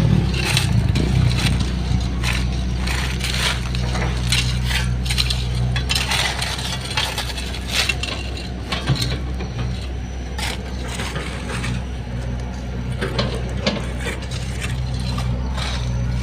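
Small excavator at work: its engine runs steadily under irregular crunching, scraping and clinking as the machine works material.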